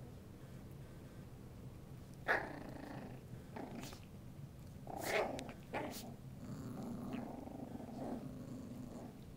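Havanese puppies play-growling while they tussle over a yarn ball toy, with a few short sharp yips in the first half and a longer low growl in the second half.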